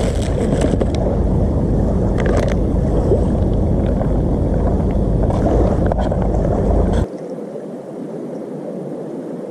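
Camp stove burner giving a steady, loud rush under a cooking pot, with dry grains poured in and a spoon stirring. The rush cuts off suddenly about seven seconds in, leaving a quieter steady hiss.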